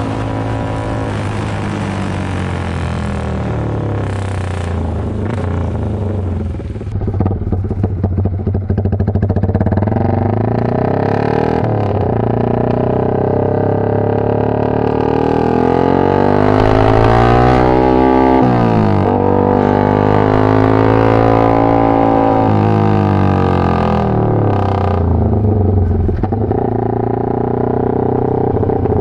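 Yamaha FZ150i (Vixion) 150 cc single-cylinder engine breathing through a very loud open GP-style aftermarket exhaust, ridden through the gears. The engine note climbs and falls repeatedly as the throttle is opened and rolled off, with a sharp rise and drop about two-thirds of the way in.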